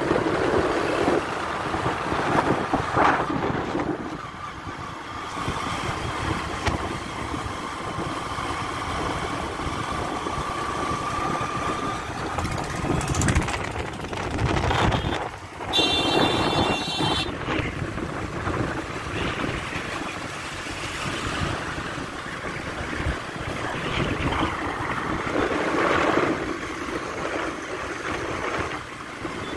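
Road and wind noise from a moving vehicle in light traffic, with wind buffeting the microphone. A brief high-pitched tone sounds about halfway through.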